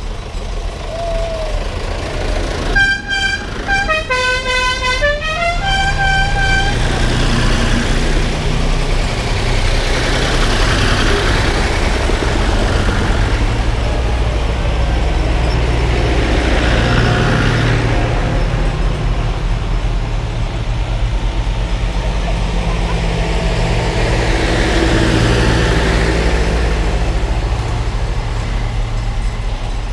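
Tractor engines running as a line of tractors drives past one after another, the sound swelling as each one goes by. About three seconds in, a horn sounds a short run of notes at changing pitches, lasting about four seconds.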